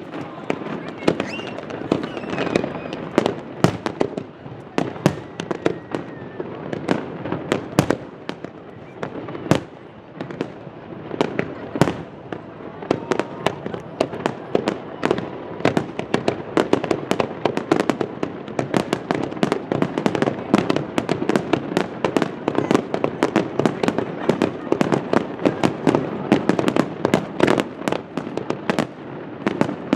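Fireworks display: a dense, continuous barrage of bangs and crackles, several reports a second.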